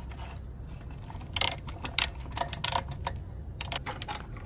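Socket ratchet clicking in several short bursts of rapid clicks, starting about a second and a half in, as the nut on the battery hold-down bracket bolt is run down.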